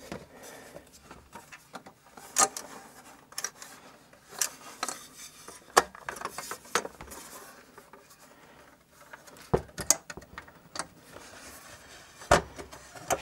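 Aluminium top cover of a Schiit Freya preamp being handled and fitted back onto its metal chassis: scattered light metal clicks and knocks over soft rubbing, the sharpest about a third of the way in and near the end as the cover is set down.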